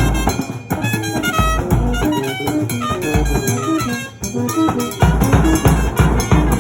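Brass band music: horns playing a melody over a drum kit beat. The band drops out briefly about four seconds in, then comes back in fuller, with a heavy bass-drum beat.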